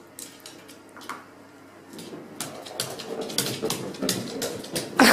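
A dog playing with a small ball on a wooden floor: a patter of light clicks and taps from claws and the ball, getting busier partway through, with a louder knock near the end.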